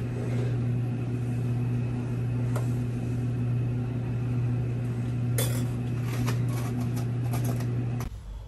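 A steady low hum with clinking of dishes and cutlery, several quick clinks from about five seconds in. The hum cuts off abruptly near the end.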